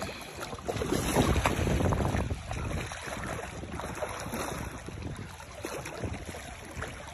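Shallow river water running and lapping close to the microphone, with wind rumbling on the phone's mic; it swells for a second or so about a second in.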